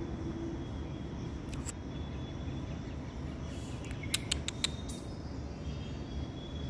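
Steady low background rumble, with a few short sharp clicks, including a quick cluster of about five about four seconds in.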